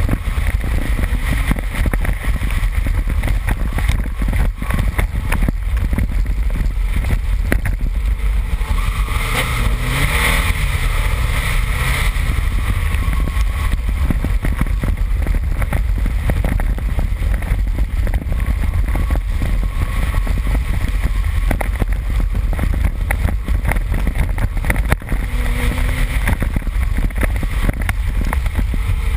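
2001 Subaru Impreza 2.5RS driven hard on dirt, heard from outside the car: heavy wind buffeting on the microphone, a constant clatter of dirt and stones striking the car, and the flat-four engine revving up and down.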